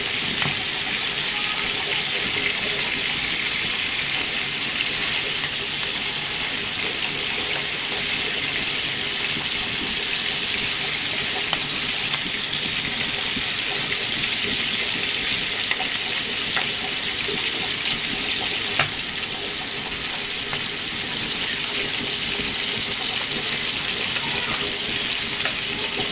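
Chicken pieces sizzling steadily in hot oil in a frying pan, nearly done frying. A few light clicks of the spatula against the pan.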